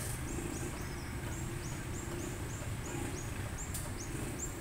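Outdoor roadside ambience: a steady low rumble of traffic and idling cars, with a short high chirp repeating about three times a second.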